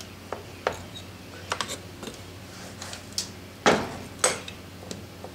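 Pliers clicking and knocking against a freshly cast hard-lead flywheel and its sand mold as the casting is pried up and lifted out of the sand. The sound is a scatter of sharp clicks, with the two loudest knocks a little past halfway.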